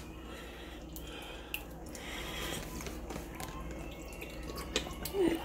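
Ketchup being squeezed from a plastic squeeze bottle into a pot of stew base: faint wet squelching and dripping, with a couple of small clicks about one and a half seconds in, over a low steady hum.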